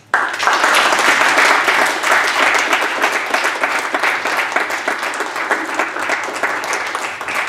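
Audience applauding: dense clapping that starts suddenly and eases off slightly toward the end.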